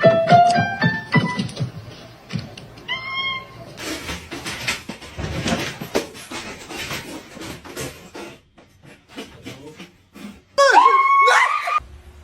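Domestic cat meowing: a short meow about three seconds in and a loud, longer meow that bends in pitch near the end, with scattered rustling and knocks between. A few notes of music play at the start.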